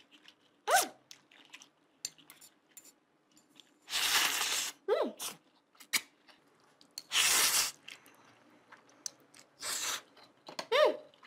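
Close-up eating sounds: loud slurps of noodles, three of them a few seconds apart, with lip smacks and pops and a few short sliding squeaks.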